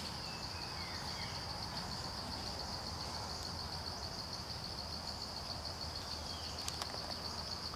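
Steady, high-pitched pulsing trill of insects in the forest, with a few faint falling bird chirps.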